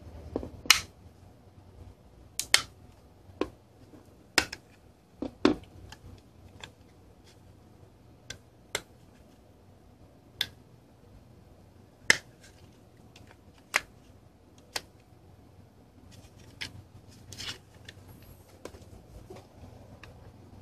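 Plastic enclosure of a Western Digital My Passport portable hard drive clicking and snapping as a plastic pry tool works its clips apart along the seam: about twenty irregular sharp clicks, the loudest in the first few seconds.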